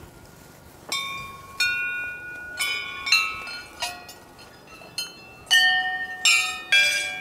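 Brass temple bells rung by hand, struck about ten times at uneven intervals from about a second in, several bells of different pitches ringing on and overlapping.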